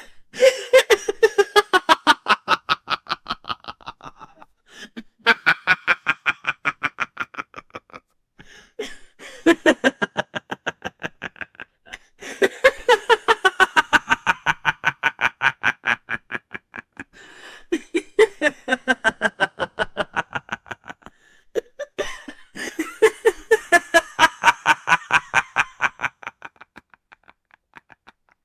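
A man's deep, evil cartoon-villain laugh: about six long bouts of rapid 'ha-ha-ha' pulses, each a few seconds long with short breaks between. The last bout trails off near the end.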